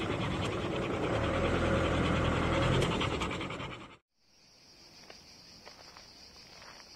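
A dog panting rhythmically over the rumble of a moving vehicle. About four seconds in, the sound cuts off abruptly and a quieter, steady high insect buzz follows.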